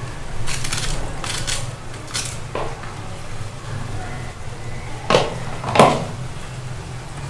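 A small blade scraping the ridged skin off a raw bitter gourd (karela): a series of short scrapes, the two loudest about five and six seconds in, over a steady low hum.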